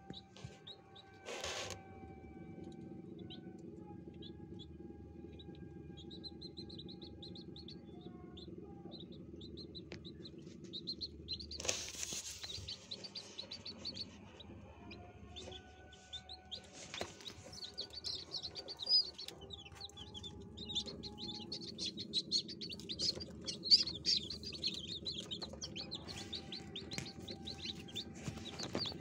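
Newly hatched chicks peeping, with many short high cheeps that grow thick and busy in the second half, over a steady low hum from the incubator. Two brief noisy rustles come about twelve seconds in and again about five seconds later.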